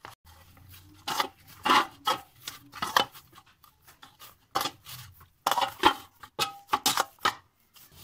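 Hands kneading stiff puri dough of wheat flour and maida in a stainless steel bowl: irregular bursts of dough being pressed, rubbed and turned, with knocks and scrapes against the steel bowl.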